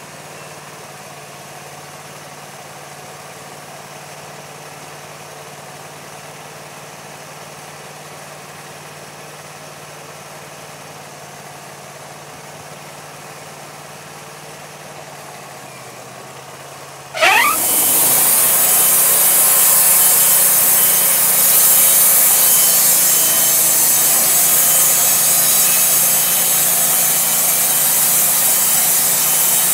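Wood-Mizer LT40 portable bandsaw mill's engine idling steadily. About two-thirds of the way in it speeds up with a brief rising whine, and the band blade cuts into a Douglas fir piling with a loud, steady hiss.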